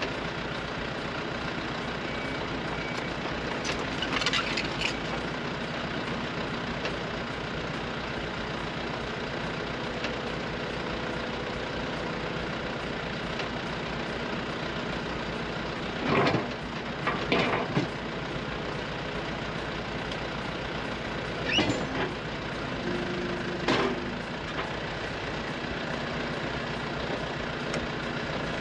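Excavator's diesel engine running steadily, with a few louder sharp knocks and squeals from the machine at work, in a cluster near the middle and again a little later.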